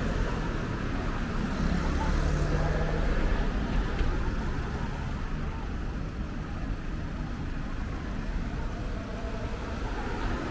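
Road traffic noise: a steady low rumble of passing cars.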